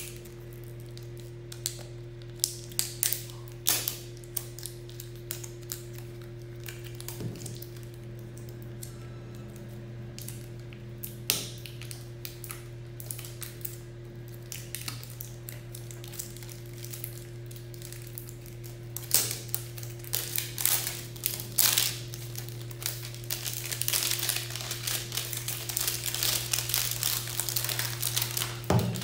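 A cardboard smartphone box being opened by hand: scattered clicks and scrapes as the seal and lid are worked loose, then a long stretch of plastic wrapping crinkling near the end.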